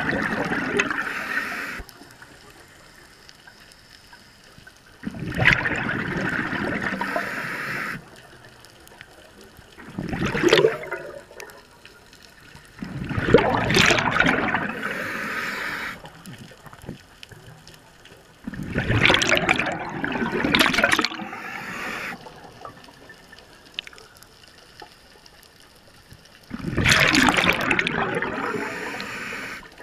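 A diver breathing underwater: six bursts of bubbling, gurgling air, each one to three seconds long and a few seconds apart, with quiet water between them.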